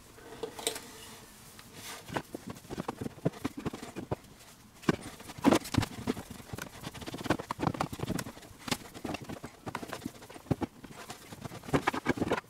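Heavy twin-core battery cable being fed by hand down through a hole in a caravan floor: irregular knocks, taps and rubbing as the cable and hands bump against the floor and battery box.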